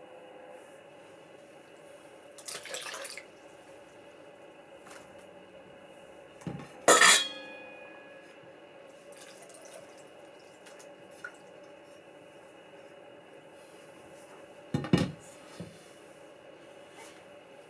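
Glass, ceramic and plastic bowls being handled and set down: a short splash of water a few seconds in, a loud clink of glass about seven seconds in with brief ringing, and a couple of dull knocks near the end.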